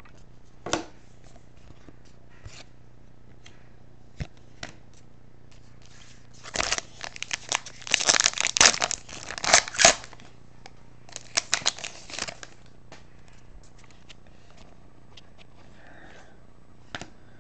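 Foil trading-card pack wrapper being torn open: a single tap about a second in, then several seconds of crinkling and ripping foil, a short pause, and another second or so of crinkling.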